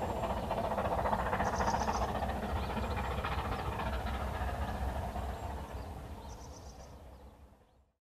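Narrow-gauge steam train running along the line, its rumble loudest early and then fading away to silence near the end.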